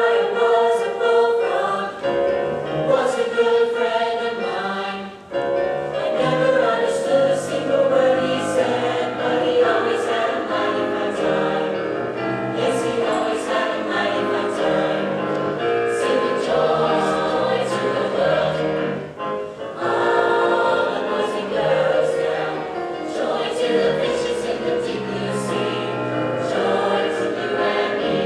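Mixed-voice high-school swing choir singing together in harmony, with short breaks between phrases about five seconds in and just before twenty seconds.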